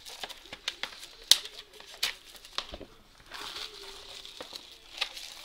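Plastic shrink wrap being cut with a box cutter and torn off a sealed box of hockey trading cards. It crinkles and crackles sharply throughout, with a longer tearing rustle a little past the middle.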